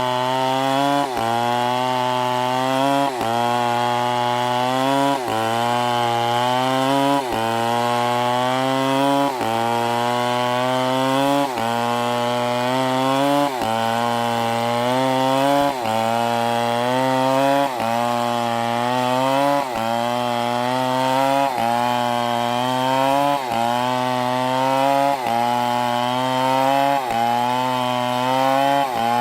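Two-stroke chainsaw running, its pitch climbing and then dropping sharply in an even cycle about every two seconds.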